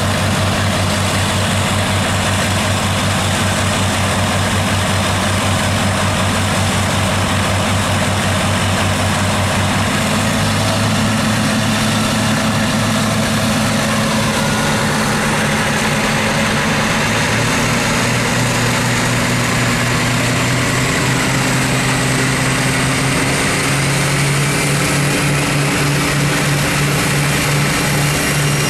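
Diesel engines of a V200 diesel-hydraulic locomotive, Maybach V12s, running hard with the locomotive standing still. The engine note steps up about a third of the way in and again near the end, as the revs rise, with a faint high whine climbing over the last half.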